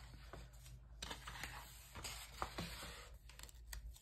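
Pages of a thick paper coloring book being turned and handled: faint paper rustling with a few soft, scattered clicks and taps, more of them in the second half.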